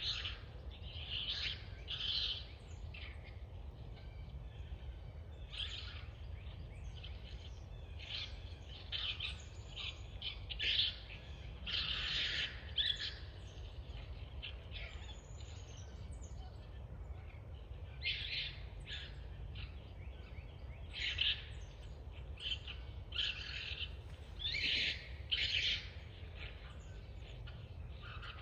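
Electronic raccoon call played from a phone through a Bluetooth speaker: short, high, chirping squalls repeated at uneven intervals over steady low background noise.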